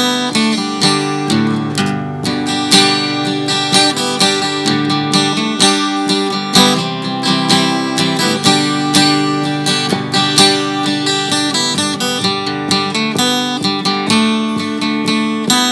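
Acoustic guitar music: strummed and picked chords in a steady rhythm.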